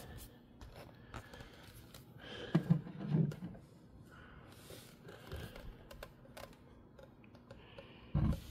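Scattered light plastic clicks and rattles of Ethernet cables and plugs being handled at a network switch's ports. A short low hum comes about three seconds in, and a dull bump near the end.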